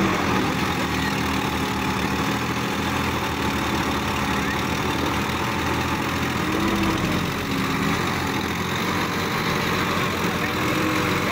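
Diesel tractor engines running steadily; the nearer one is a Sonalika Supreme DI-50 RX.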